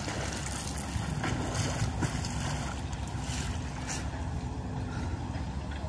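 Wind rumbling on the microphone, with a faint steady hum from about a second in.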